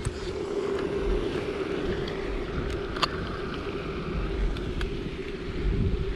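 Wind rumbling on the microphone over a steady low hum, with a few light clicks as a small plastic toy fishing reel is handled and cast.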